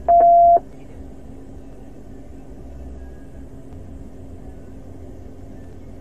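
One loud, steady radio beep about half a second long, with a click at its start and end, from the police radio. After it, a steady low hum from the patrol car.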